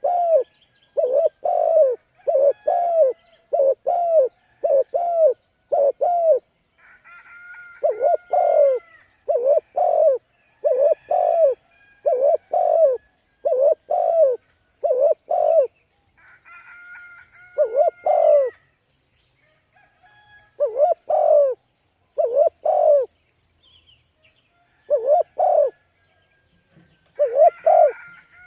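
Spotted dove cooing: runs of short, rhythmic coos, several a second, broken by pauses of one to two seconds.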